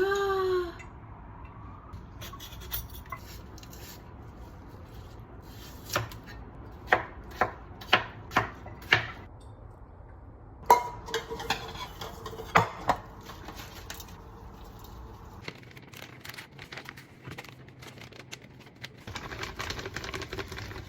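Knife chopping on a cutting board: a run of sharp knocks, about eight of them between six and thirteen seconds in, with quieter scraping and handling sounds in between.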